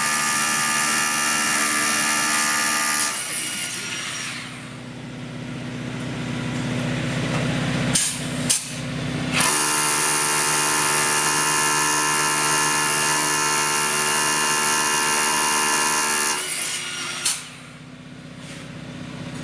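Power drill running at a steady speed in two long runs, stopping about 3 seconds in and starting again several seconds later, with a few sharp clicks in the pause and after it stops.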